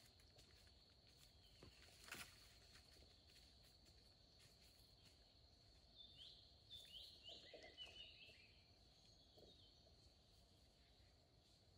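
Faint forest ambience: a steady high insect drone, a few soft footsteps on leaf litter about two seconds in as the walker moves away, and a short run of bird chirps from about six to eight seconds in.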